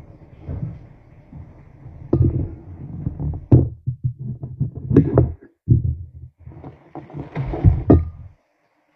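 Irregular dull thuds and sharp knocks of things being handled on a kitchen counter, with a red onion and glass plate being picked up and moved. The knocks stop shortly before the end.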